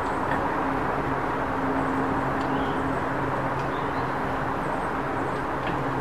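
Steady low rumble of distant traffic with a faint low hum, and a few faint, short bird chirps scattered high above it.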